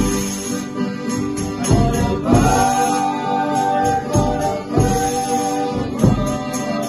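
Folia de Reis ensemble of men singing together to accordion and strummed guitars, with tambourine jingles. For about the first two seconds the instruments play alone. Then the voices come in on long, drawn-out held notes.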